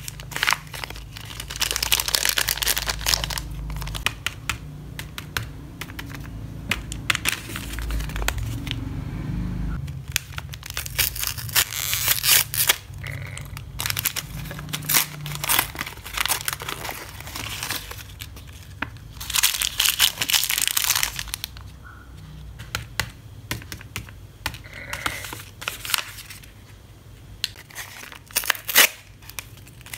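Shiny foil-lined plastic wrappers crinkling and tearing as they are handled and ripped open by hand, in irregular bursts of rustling.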